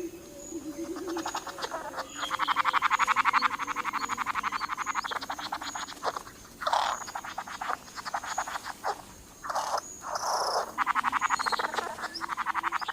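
A male bowerbird's rapid rattling courtship call, given in several stretches of a few seconds with short bursts in between.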